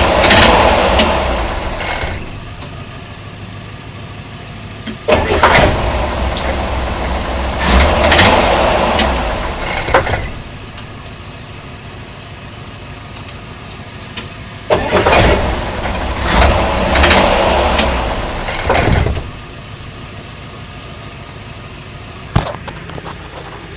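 Chevrolet Corvair air-cooled flat-six engine running with its belt off, idling and then running much louder in three spells of a few seconds each before dropping back. It is being run to track down a knocking noise whose cause is unknown.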